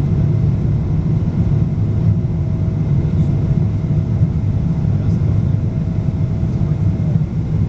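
Steady, loud rumble of engine and air noise inside a Boeing 777's cabin, around the time of the landing approach. A thin steady whine runs alongside it and fades out about seven seconds in.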